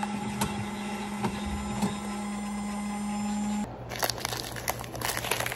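Coffee dispensing machine running with a steady low hum, which stops abruptly a little over halfway through. After it come clicks and crinkles of a plastic snack wrapper being handled.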